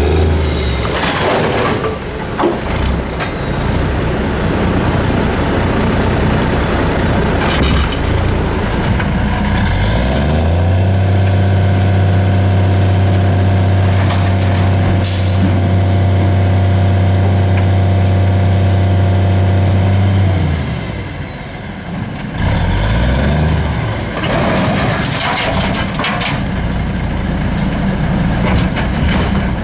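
Diesel engine of a 1982 American LaFrance CTC garbage truck with a Heil Formula 7000 automated side-loader, revving up about a third of the way in and holding a steady high speed for about ten seconds before dropping back. A second short rev follows as the side arm lifts and tips a cart into the hopper. Knocks and metallic clatter of the arm and junk sound throughout.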